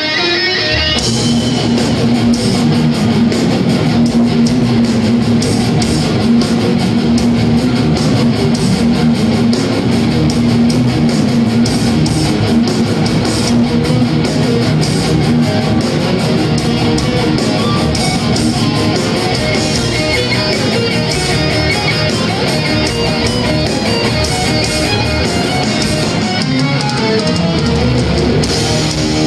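Thrash metal band playing live and loud: distorted electric guitars, bass and drums, heard from the crowd. A guitar part leads in and the full band with drums and cymbals crashes in about a second in.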